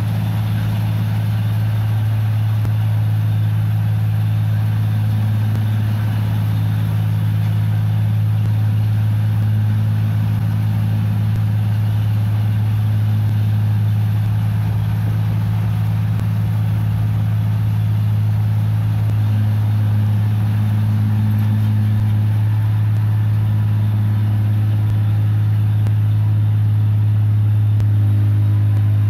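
Diesel engine of a 1545 combine harvester running steadily as the tracked machine crawls through a muddy rice paddy: a constant deep engine drone.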